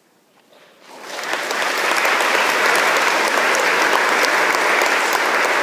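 Audience applause breaking out about a second in after a brief silence, rising quickly and then holding steady.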